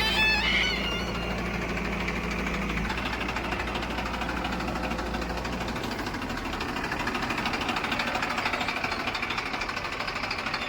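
Heavy diesel engine running steadily with a rapid, even knock. A short high-pitched tone fades out within the first second.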